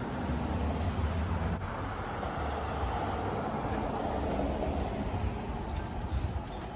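Street traffic noise: a steady low rumble of road vehicles, with a vehicle swelling past about halfway through.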